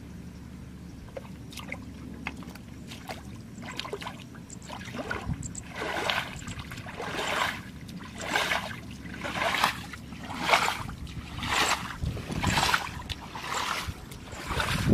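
Wading splashes in shallow muddy water: regular sloshing steps about once a second, starting about five seconds in and growing louder, over a steady low rumble.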